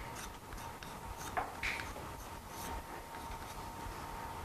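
Chalk tapping and scraping on a blackboard while drawing: a few short ticks and scratches.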